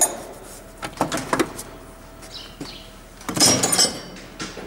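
Hand tools and steel engine parts clinking and knocking on a wooden table during teardown of a YaMZ-236 diesel engine: a few sharp knocks about a second in, then a quick cluster of ringing metallic clinks a little past three seconds.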